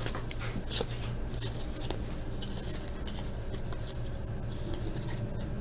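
2011 Bowman Platinum baseball cards being handled and flipped through by hand, with faint scattered light clicks and rustles over a low steady hum.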